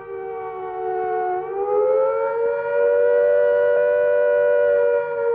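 Air attack warning siren of the British civil defence system, its wailing tone falling, then rising again about a second and a half in and holding high before it starts to sink near the end. This rising and falling wail is the warning that an air attack is imminent and everyone must take cover at once.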